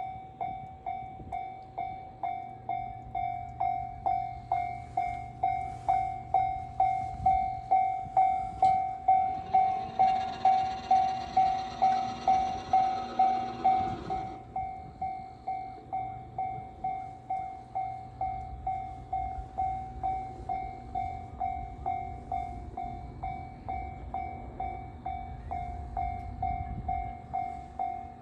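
Japanese railway level-crossing warning bell dinging steadily, about two strikes a second. A train rushes past for a few seconds around the middle.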